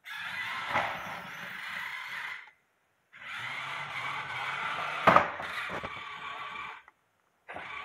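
A small 3D-printed robot rover driving on a hardwood floor: its electric drive motors run and its printed rubber tyres roll over the boards in two runs, about two and a half and then nearly four seconds long, with a sharp knock about five seconds in.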